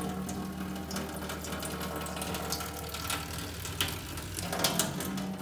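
A thin jet of water streams from a pinhole in a water-filled balloon and spatters onto a stainless steel sink, making a run of irregular small ticks and splashes. A steady low hum runs underneath.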